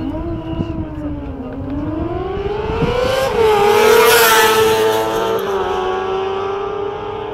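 600 cc sport motorcycles at full throttle on a drag run, the engine note climbing and dropping back at each gear change. It is loudest as a bike passes close about four seconds in, then eases as the bikes go away down the strip.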